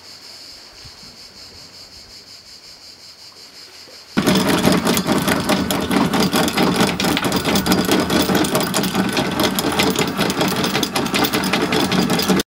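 Insects chirping steadily, then about four seconds in an electric anchor windlass starts up loudly, its motor running and the anchor chain clattering over the gypsy.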